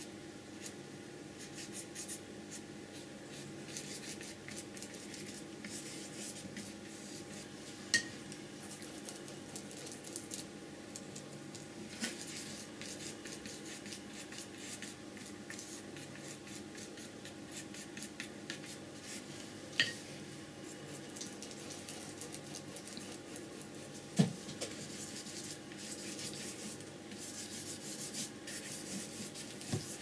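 Flat brush stroking acrylic paint onto paper: a soft, continuous scratchy brushing, with four sharp clicks spaced through it, the loudest about two-thirds of the way in. A faint steady hum lies underneath.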